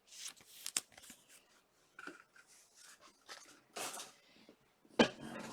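Trading cards being handled and flipped through by hand: soft slides and rustles with small clicks, a louder brush near four seconds and a sharp tap about five seconds in.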